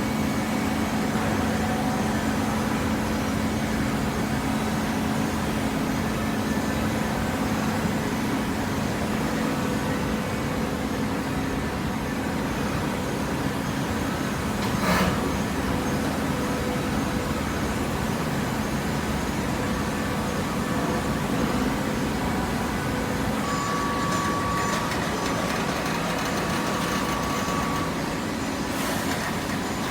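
Hydraulic baling press running steadily, its motor and pump giving a constant hum. There is one sharp knock about halfway through, and a higher whine comes in near the end.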